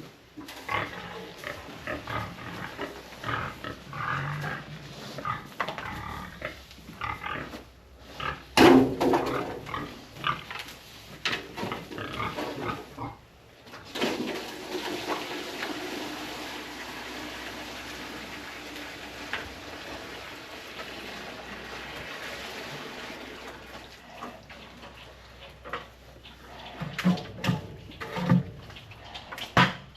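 Pigs grunting in short, irregular calls, the loudest outburst about nine seconds in. A steady rushing noise runs for about ten seconds through the middle.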